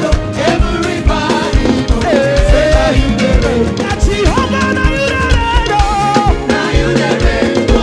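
Live band playing upbeat African gospel music with a steady drum beat, while a voice sings long held, wavering notes over it.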